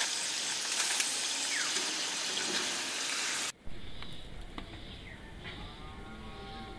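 Hot oil sizzling as deep-fried French fries are lifted from a wok in a wire spider strainer: a dense, even hiss that stops suddenly about halfway through. After it comes a much quieter background with a faint bird-like call near the end.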